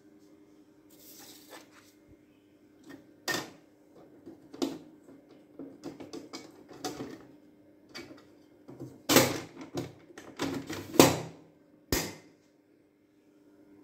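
Hands handling the plastic casing of an Epson L380 ink-tank printer, lifting the top to reach a paper jam: irregular clicks, knocks and paper rustles, busiest late on, ending in a sharp clack near the end, over a faint steady hum.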